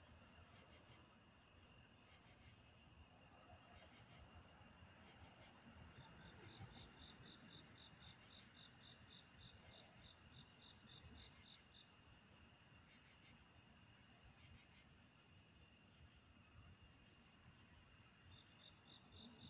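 Faint steady trilling of night insects such as crickets, with a quick, even series of short high chirps from about six to twelve seconds in and again near the end.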